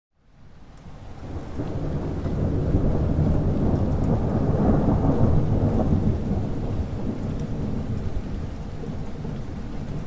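Thunder rumbling low and long over steady rain. It fades in over the first two seconds, swells to its loudest around the middle and eases off toward the end.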